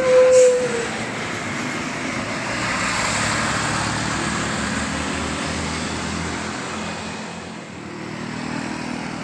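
A bus's telolet musical horn holds one note that cuts off under a second in. Then a bus passes by, its engine and tyre noise swelling and fading away, and another engine drone builds near the end.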